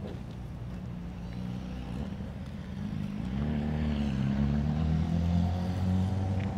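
A motor engine running close by, a low hum that swells louder about three seconds in.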